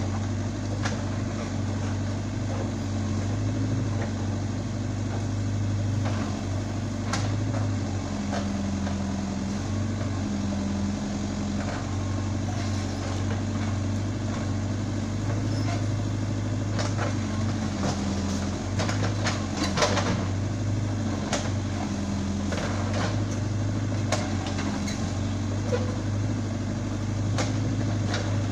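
Caterpillar 422F backhoe loader's four-cylinder diesel engine running steadily as the backhoe digs, its note shifting up and down as the arm works. Scattered knocks and scrapes of the bucket in soil and stones come through, thickest about two-thirds of the way in.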